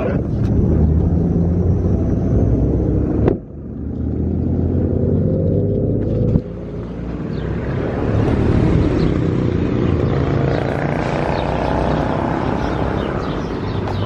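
Steady low rumble of a car in motion or road traffic, broken by two abrupt cuts about three and six seconds in.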